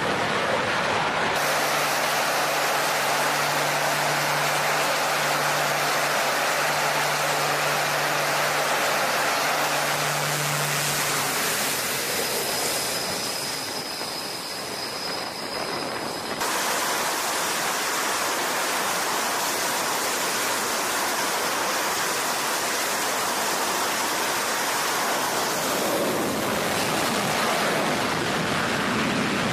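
Aircraft engines running during catapult launches on a carrier flight deck, a loud steady rushing roar. A steady low hum sounds through the first ten seconds or so.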